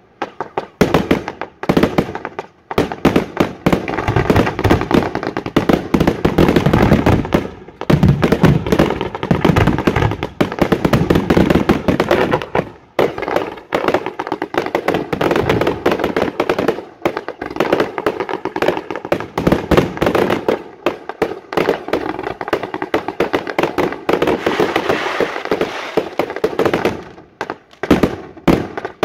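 Professional fireworks display: a dense barrage of aerial firework bursts, many sharp bangs a second, easing off briefly about thirteen seconds in and again just before the end.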